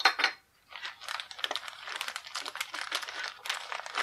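Thin clear plastic parts bag crinkling and crackling as hands grip and work it open, a dense crackle that starts about a second in. Just before it, two sharp clicks.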